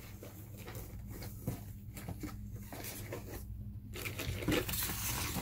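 Soft, irregular rustling and handling of packing materials over a steady low electrical hum, with a denser, brighter rustle near the end.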